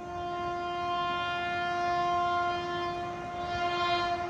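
WAP-7 electric locomotive's horn sounding one long, steady blast that stops after about four seconds.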